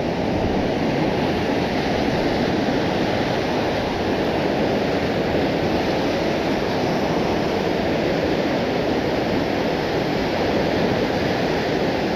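Steady rush of whitewater rapids churning and swirling against rocks.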